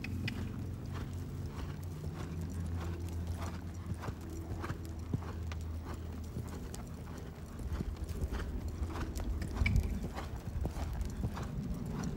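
Paint horse cantering on a sand arena: regular hoofbeats on the soft footing, about two a second, over a low steady hum.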